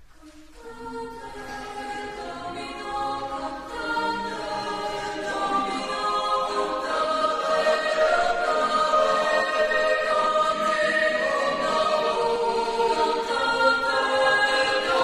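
Mixed chamber choir of women's and men's voices singing unaccompanied in sustained chords, entering softly just after a brief pause and swelling steadily louder over the first several seconds.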